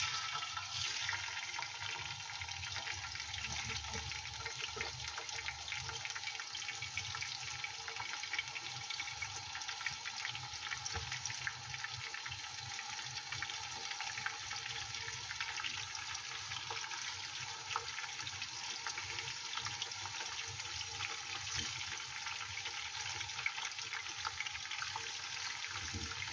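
Marinated fish pieces frying in hot oil in a pot: a steady, dense sizzle full of small crackles, which sets in as the first piece is laid into the oil.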